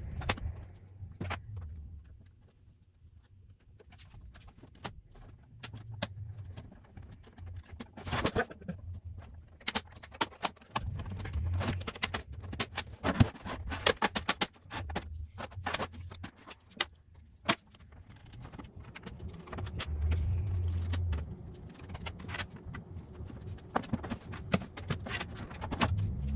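Scattered clicks, taps and rattles of an Xbox One S console being handled and taken apart, with dull bumps from time to time.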